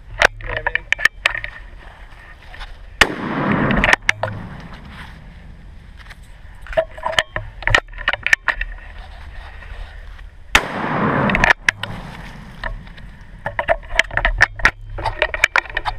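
Two sawed-off shotgun blasts about seven and a half seconds apart, each a sharp crack followed by about a second of noise. Between them come sharp clicks and knocks of handling.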